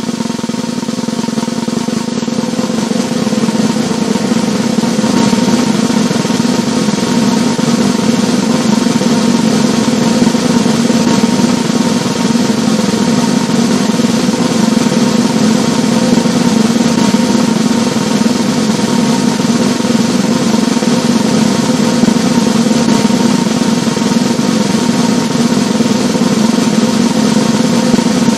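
A sustained drum roll that grows a little louder over the first few seconds, then holds steady without a break.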